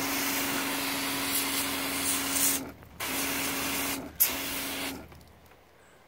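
Speed Clean CoilJet battery-powered pressure washer spraying water onto a mini-split's plastic front panel: a steady spray hiss over the pump's hum. The spray cuts out briefly about two and a half seconds in and again at four seconds, then stops about five seconds in.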